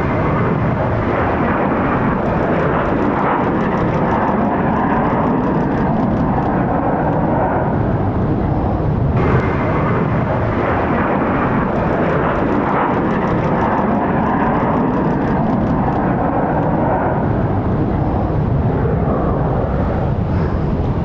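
Viva Aerobus Airbus A321's jet engines at takeoff thrust, a loud, steady roar as the airliner lifts off and climbs away.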